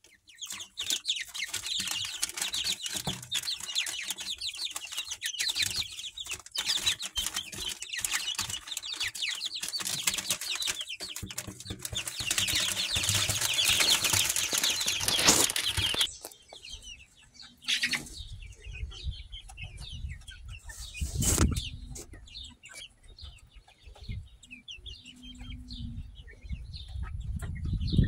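A brood of young chicks peeping in a dense, continuous chorus, with wings flapping as they scramble in the brooder. About 16 seconds in the peeping thins to scattered chirps over a low rumble, with a loud thump a few seconds later.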